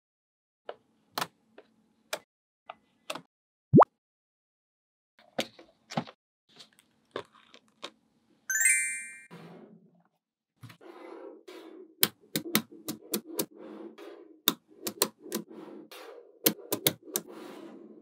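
Small magnetic balls clicking as they snap onto one another, in sharp separate clicks at irregular intervals, the loudest about four seconds in. About halfway there is a brief bright ringing tone, and in the last third a steady rattle of loose balls runs under quicker clicks.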